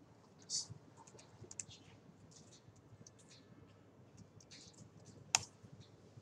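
Computer keyboard being typed on in short, light runs of keystrokes. About five seconds in comes one sharp, louder key click, the loudest sound here, as the typed entry is submitted.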